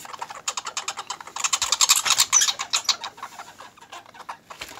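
Young red squirrels chattering in complaint: a fast, even rattle of sharp clicks, about ten a second, loudest in the middle and thinning toward the end.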